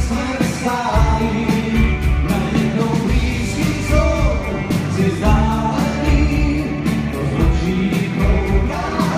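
Rock band playing live, with electric guitars, bass guitar and drum kit, and a singer's voice over them.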